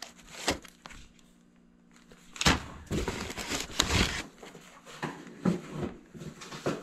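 Rummaging through a box of stored items: a single knock, a short quiet pause, then a sharp knock about two and a half seconds in followed by rustling and a string of clattering knocks as things are handled and moved.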